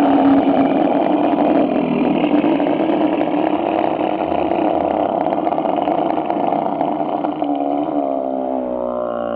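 A girl screaming in one long, unbroken scream, its pitch rising near the end.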